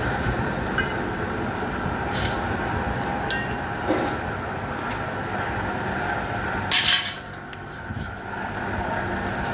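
Steel drum lid cutting machine running steadily, with metallic clinks and scrapes as it works the drum's steel; a louder metallic scrape comes just before seven seconds in, after which the running sound drops briefly.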